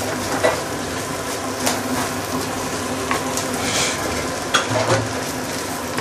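Fried rice sizzling in a stainless steel pan while a wooden spatula stirs and tosses it, with scattered scrapes and knocks of the spatula against the pan.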